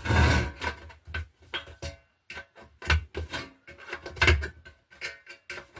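Thin black sheet-metal stove pipe being handled and worked open at its seam: a run of small clicks and rattles with three louder knocks, the metal ringing briefly.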